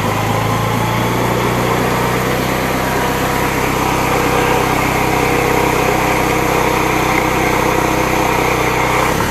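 Bajaj Pulsar 150's single-cylinder engine held at steady revs during a burnout on the motorcycle.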